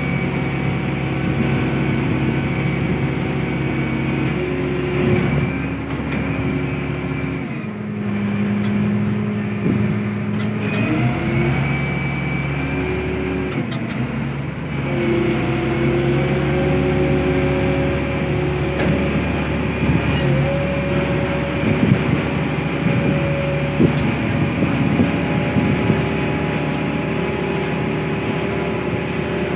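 Ship's deck crane machinery running steadily while the crane is worked. Its hum and whine step up and down in pitch several times. There are a few sharp knocks in the last third.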